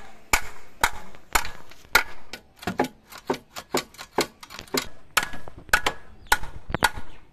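Metal hand tools clicking and knocking on the exhaust fittings of a Bajaj Dominar 400 motorcycle while the catalytic converter is being removed: irregular sharp metallic taps, about two to three a second, some in quick pairs.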